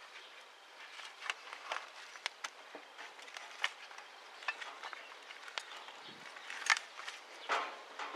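Scattered small metal clicks and taps as the pedal and frame of a car foot pump are handled and fitted together, with a denser clatter near the end.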